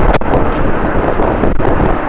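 Strong wind buffeting the microphone, over the steady noise of jet aircraft engines.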